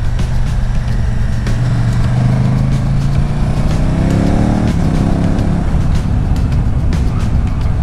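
KTM 1290 Super Duke GT's V-twin engine with Akrapovič exhaust, ridden under load: the engine note climbs as the bike accelerates, then drops sharply at a gear change a little past halfway and pulls on at lower revs, over a steady low rumble.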